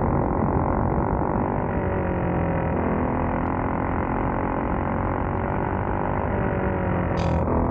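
Racing kart engine running steadily under power on track, its pitch drifting slightly up and down with speed. A brief hiss comes near the end.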